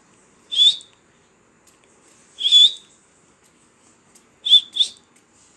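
Indian ringneck parrot giving short, sharp, high-pitched whistling calls: one about half a second in, another about two seconds later, then a quick double call near the end.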